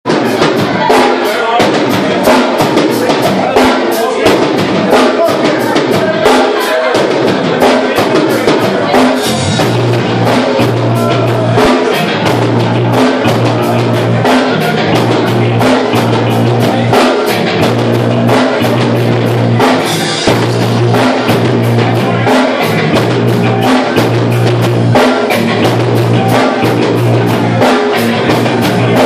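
Rock band playing loud and live: a drum kit keeps a fast, steady beat of kick and snare, about four hits a second. A deep, held bass note comes in about a third of the way through.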